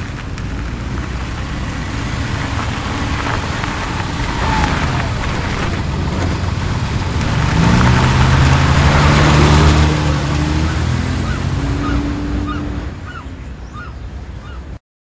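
Car engine and traffic noise: an engine revs up about halfway through and runs on for a few seconds, then the sound cuts off suddenly near the end.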